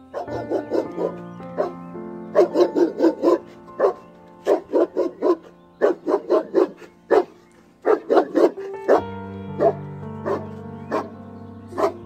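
Pit bull barking in quick runs of short barks, several a second, over background music.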